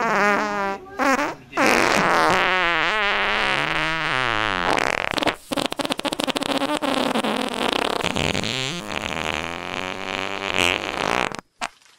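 Loud, buzzy, wobbling fart-like noises in long runs, their pitch bending up and down, cutting off suddenly near the end.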